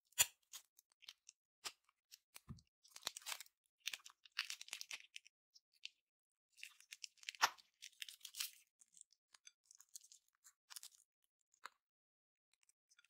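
Slime being squeezed and worked by hand, crackling and crunching in irregular bursts with scattered small clicks.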